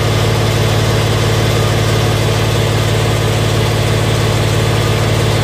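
Engine of a high-pressure drain jetting machine running steadily at constant speed, a low even hum.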